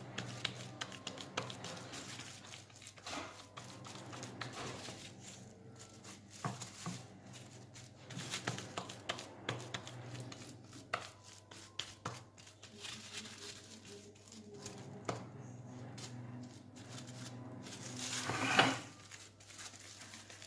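Plastic sheet crinkling and rustling in a frying pan as harcha dough is pressed into it by hand, with scattered small clicks and knocks. A louder swell of noise builds and stops abruptly near the end, over a steady low hum.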